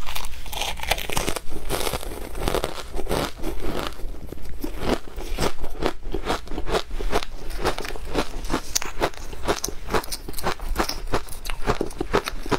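Close-miked mouth crunching and chewing of shaved ice dusted with matcha powder: crisp crunches following one another several times a second.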